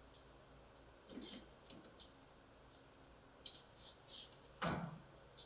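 Faint scattered clicks and light metal taps from a steel suspension control arm being handled and lined up against its frame mounting brackets, with a louder knock near the end.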